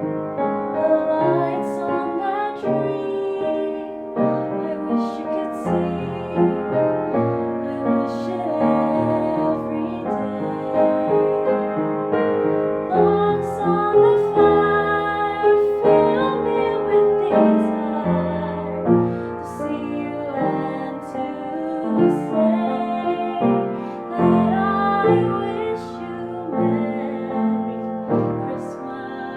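Instrumental music led by piano, with held notes changing every second or so.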